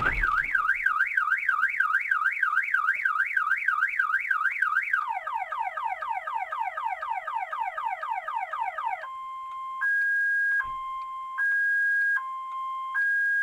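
Car alarm siren cycling through its patterns. First a fast up-and-down warble, then rapid falling sweeps, then about nine seconds in it switches to slowly alternating high and low tones.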